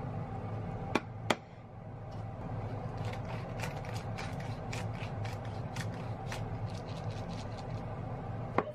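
Wooden pepper mill grinding black pepper: a run of quick, irregular crunching clicks from about three seconds in. Two sharp knocks come about a second in, over a steady low hum.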